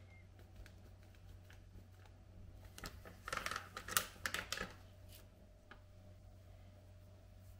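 Crinkling and rustling of a flour packet being handled, in a flurry lasting about two seconds starting a little under three seconds in. Scattered faint clicks come before and after it.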